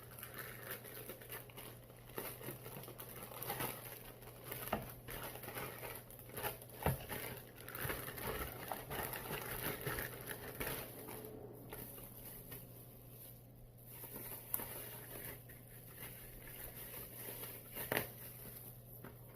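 Packaging being handled and opened during an unboxing: irregular rustling and crinkling with small clicks and knocks, a few sharper knocks about seven seconds in and near the end.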